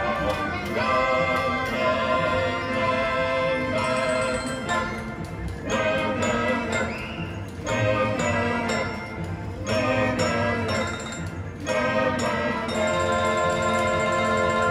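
Recorded music playing over loudspeakers for an automaton show of animatronic chef figures.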